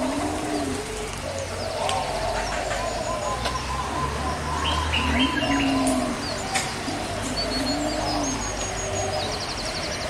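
Several birds calling at once: low arching calls repeating every few seconds under a busy layer of higher chirps, with a fast high trill near the end.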